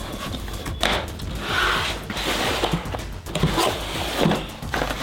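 Cardboard laptop packaging being opened and unpacked: box flaps and inner cardboard pieces scraping and rustling, with a few short knocks as they are handled.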